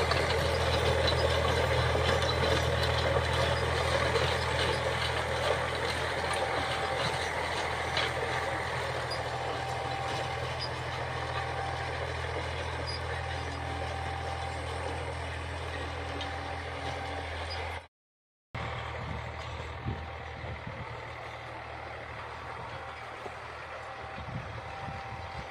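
Eicher 485 tractor's three-cylinder diesel engine running steadily under load while it drives a Soil King rotavator churning dry, cloddy soil. The sound fades gradually and cuts out completely for about half a second about two-thirds of the way through.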